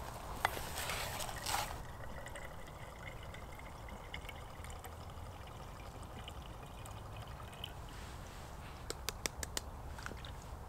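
Water trickling steadily for several seconds, after a brief rustle at the start, with a few sharp clicks near the end.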